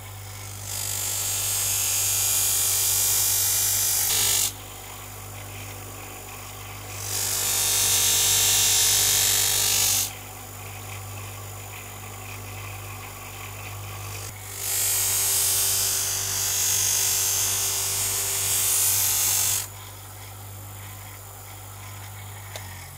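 DeWalt bench grinder running steadily with a cardboard wheel fitted; three times a knife blade is pressed against the spinning wheel, each time a loud, high grinding hiss lasting several seconds, while the motor's hum carries on between.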